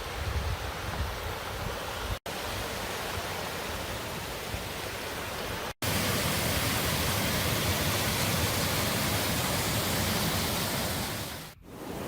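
Waterfall rushing: a steady noise of falling water, cut off for an instant about two seconds in and again about six seconds in, a little louder after the second break, and dipping briefly near the end.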